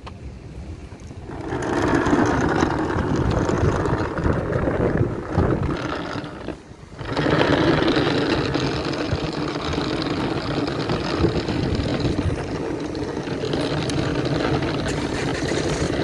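A Henry vacuum cleaner's wheels rolling over asphalt as it is dragged along by its hose, a steady rough rolling noise that starts about a second in and stops briefly about six and a half seconds in.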